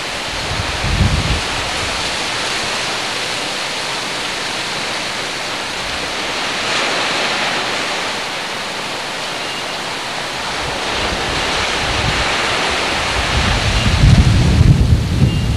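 Strong wind blowing across a camcorder's built-in microphone: a steady, loud rushing noise with low rumbling buffets about a second in and heavier gusts toward the end.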